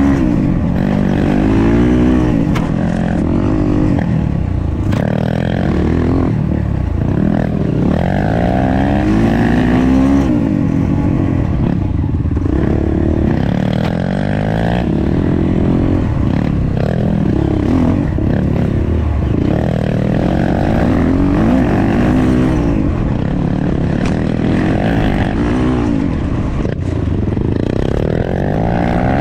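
Honda Tornado dirt bike's single-cylinder four-stroke engine under hard riding, its pitch rising and dropping back again and again as the rider accelerates and shifts through the gears.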